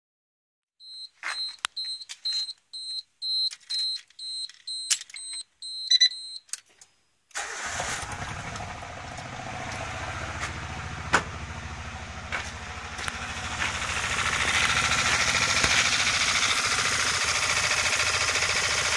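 A string of short, high electronic beeps with a few clicks, then about seven seconds in a Suzuki F6A 660 cc three-cylinder engine starts and keeps running, louder near the end as it is heard from the engine bay. The owner suspects the engine has blown.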